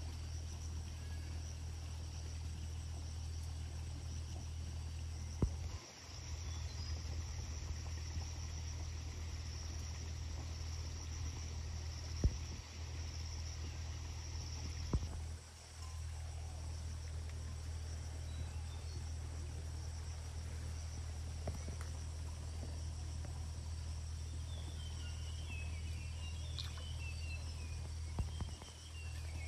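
Steady high-pitched insect chorus, crickets, over a constant low hum. A few sharp clicks stand out, and small chirps come in near the end.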